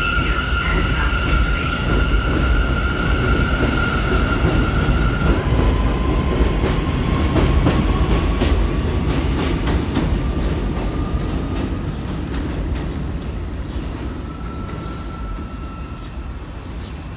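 R179 New York City subway train departing: a steady high whine for the first five seconds, then a slowly rising motor whine as it picks up speed, with the deep rumble of the cars and repeated clicks of the wheels over rail joints. The sound fades over the last few seconds as the train draws away.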